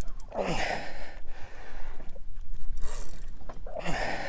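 Fishing reel being worked under load from a hooked fish, its gears and drag clicking and whirring in two bursts, each sliding down in pitch.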